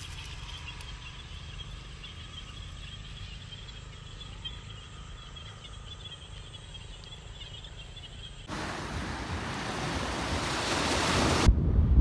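Outdoor wind noise rumbling on the microphone, with a faint steady high chirring above it. About eight seconds in, a loud rushing hiss cuts in and swells louder for about three seconds, then stops abruptly.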